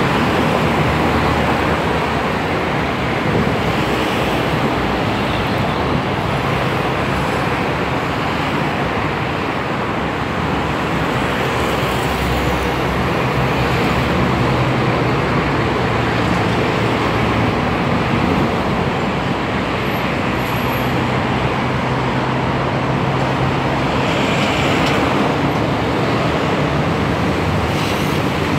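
Steady road traffic noise, with a low engine drone that rises slightly in pitch near the end.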